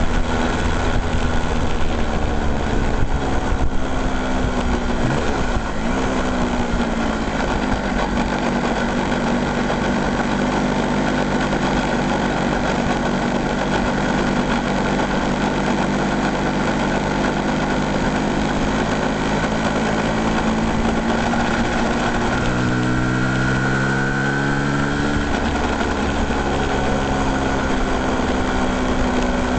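An engine running steadily, with a brief shift in pitch about six seconds in and a short rise in pitch a little after twenty seconds before it settles back.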